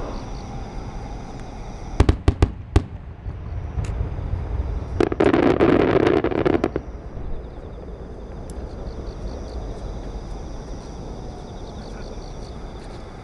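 Aerial firework shells of a starmine barrage bursting. Four sharp booms come in quick succession about two seconds in, then a dense, louder run of rapid bangs from about five to nearly seven seconds in, over a steady low rumble.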